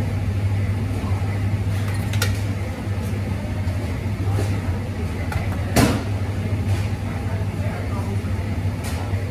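Busy café behind the espresso counter: a steady low machine hum with faint background voices and the clatter of cups and equipment, a sharp knock about six seconds in.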